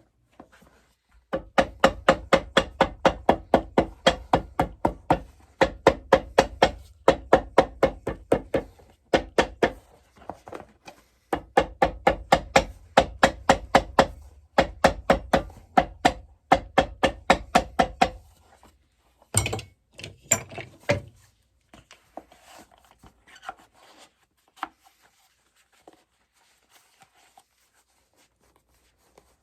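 Shoe sole stitching machine running in bursts, stitching the sole with an even clacking of about three to four stitches a second over a motor hum, with short stops between runs. It stops, and a few sharp knocks follow.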